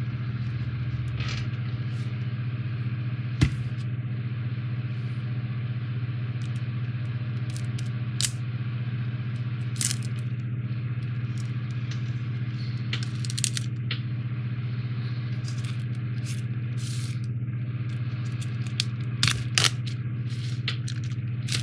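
Shrink-wrapped foam puzzle boards and a cardboard kit box being handled and unwrapped, giving scattered crackles, scrapes and clicks over a steady low hum.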